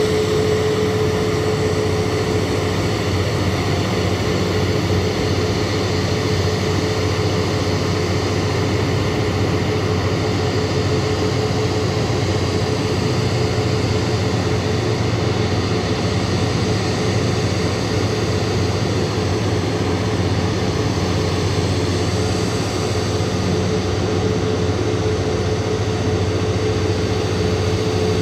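Airbus A340-642 airliner running on the ramp during pushback: a steady jet whine with one constant tone over a low rumble.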